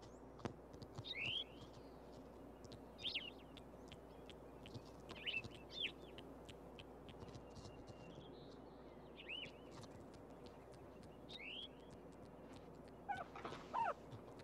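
Baby porcupine gnawing bark off a twig: faint, scratchy clicks of its teeth on the wood. Short high chirps come every two seconds or so, and a longer falling call sounds near the end.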